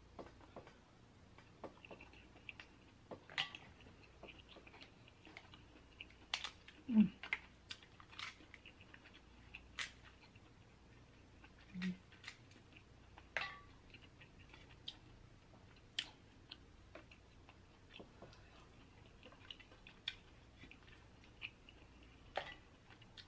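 A person chewing food close to the microphone: faint, scattered wet mouth clicks and smacks, with a brief low vocal sound about seven seconds in and another near twelve seconds.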